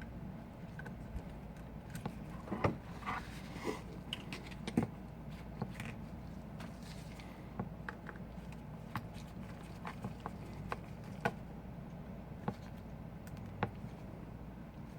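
Small, irregular clicks and taps of tools and tiny parts being handled during an iPhone 5 disassembly, over a steady low hum.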